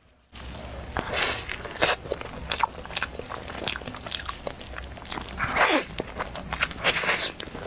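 Close-miked eating: plastic-gloved hands pull apart a chocolate-coated crepe roll, then it is bitten and chewed. The sound is a dense run of small crackles and moist mouth clicks, starting just after a brief hush.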